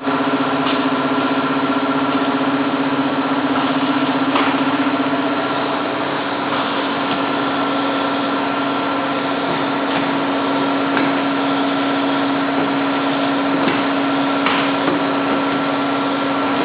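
Bottle-coding line machinery with a small-character inkjet printer running: a steady mechanical hum with a few short, sharp clicks scattered through it.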